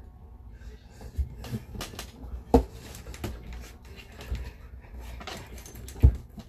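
Irregular soft thumps and knocks, about eight in all, scattered over a low rumble; one about two and a half seconds in is the loudest.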